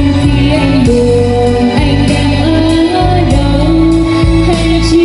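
A woman singing karaoke into a wireless microphone over a backing track, with long held notes and heavy bass. Both voice and music play loud through the NT 1002 powered trolley speaker, which has two 40 cm bass drivers and two horn tweeters.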